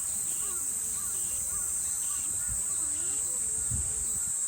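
Summer insect chorus: a steady high-pitched drone of cicadas, with a call of short rising-and-falling notes repeating about every half second over it.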